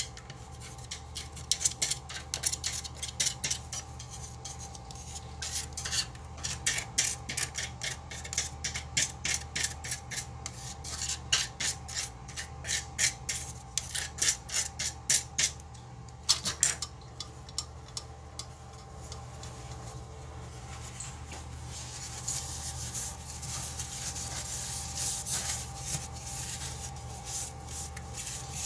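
Sink surface being scrubbed clean by hand, with quick back-and-forth strokes through the first half and a steadier continuous rubbing for the rest.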